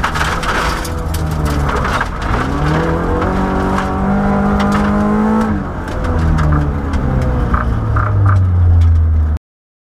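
Mk2 Escort rally car's 2.0-litre Toyota engine, heard from inside the cabin, revving up and dropping back several times through the gears, with frequent knocks from the gravel underneath. Near the end the revs settle lower and steadier, and the sound cuts off suddenly.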